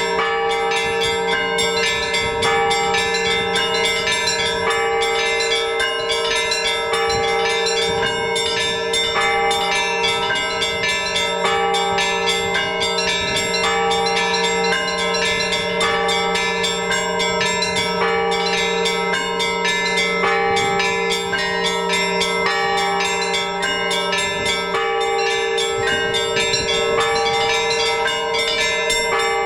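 Orthodox church bells rung in a continuous full peal: the steady hum of the large bells under quick, busy strokes of the smaller bells.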